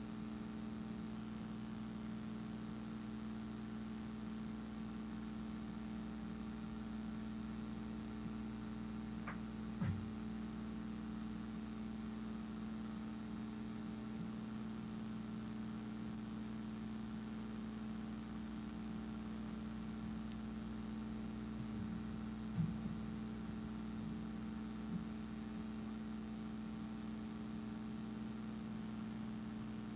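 Steady low electrical hum made of several even tones, with a couple of faint clicks about a third and three quarters of the way through.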